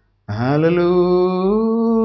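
A man's voice chanting in long held notes in prayer. A brief pause at the start, then one sustained note that swells slightly and rises a little near the end.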